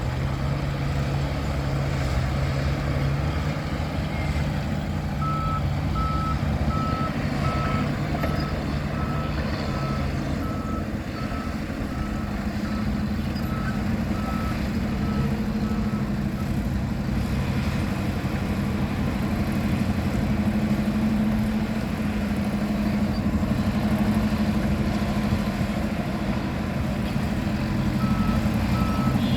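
Diesel engines of heavy construction machinery running steadily, with a reversing alarm beeping in a steady series on one high note from about five seconds in to about halfway, and starting again near the end.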